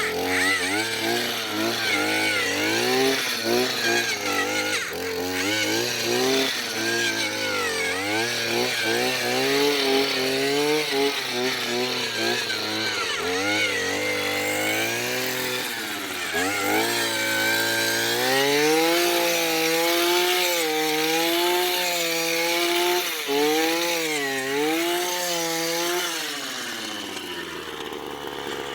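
Gas-powered two-stroke earth auger (post hole digger) running, its engine pitch wavering up and down as the bit works in the ground. The pitch drops near the end as the engine slows.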